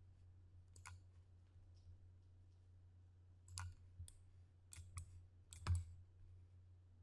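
Computer mouse clicking, a few separate sharp clicks: one about a second in, then five or so between about three and a half and six seconds. A faint steady low hum runs under them.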